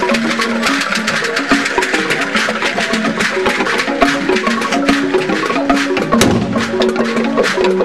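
Traditional dance music for a juju masquerade: fast, dense percussion with wood-block-like clicks and drums under a melody of short held notes stepping in pitch. There is a heavier thump about six seconds in.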